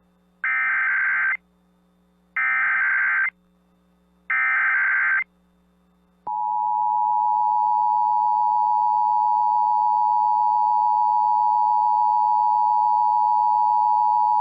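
NOAA Weather Radio Emergency Alert System signal: three short bursts of SAME digital header data, each about a second long and two seconds apart, then, about six seconds in, the long steady alert tone that announces the high wind warning.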